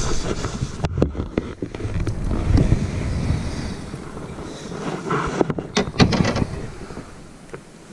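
Wind rumbling on the action camera's microphone, with a few sharp knocks and clicks about a second in and again around six seconds, from handling gear on the kayak.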